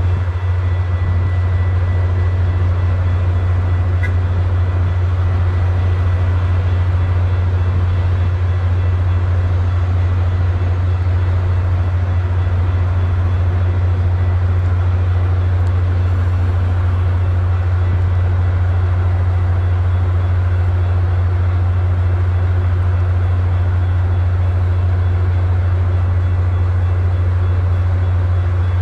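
A diesel locomotive's engine running with a loud, steady low drone that holds unchanged throughout.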